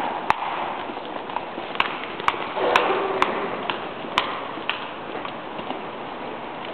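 Footsteps of several people in hard-soled shoes on a stone floor, sharp irregular clicks that thin out after about four seconds, over steady background noise.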